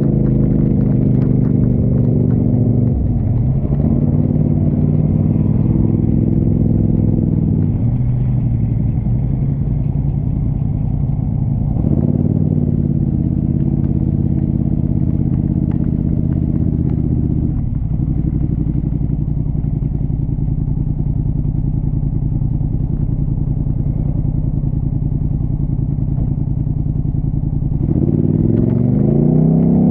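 Engine of a four-wheel-drive off-road vehicle running continuously, its pitch dipping and recovering several times and climbing near the end.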